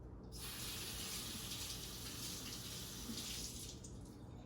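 Kitchen tap running for about three seconds, an even hiss of water that starts suddenly just after the start and shuts off sharply near the end.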